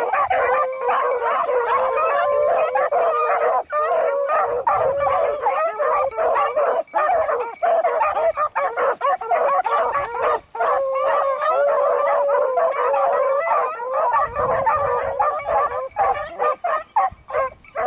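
A pack of beagles baying together while running a rabbit's scent, many hound voices overlapping almost without a break.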